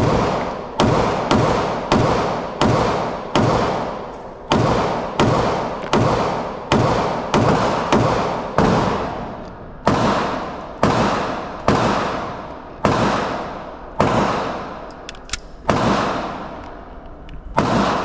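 A steady string of gunshots at a shooting range, about one to two a second and slightly uneven. Each shot rings out with a long echoing tail.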